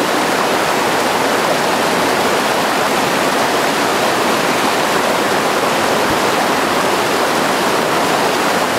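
Steady rush of river rapids, whitewater breaking over rocks.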